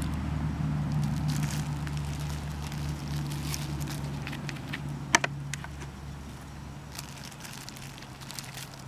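Dry grass mulch and soil crackling and rustling under a gloved hand as a handful of soil is pressed onto the ground, with one sharp click about five seconds in. A steady low motor hum runs underneath.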